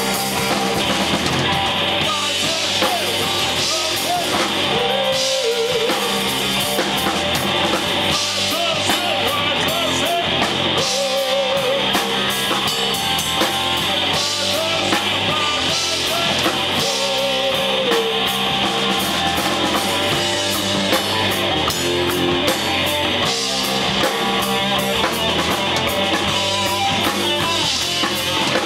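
Live blues-rock jam: a Stratocaster-style electric guitar played loud through an amp over a drum kit. Long held notes with wide vibrato come back every five or six seconds.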